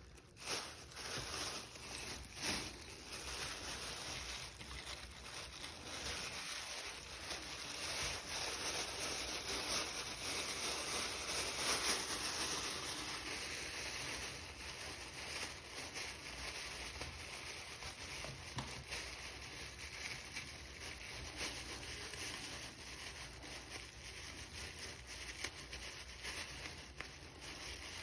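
Steel handcuffs and hands fumbling as someone in double-locked cuffs works at escaping them: steady rustling handling noise with scattered faint clicks and knocks.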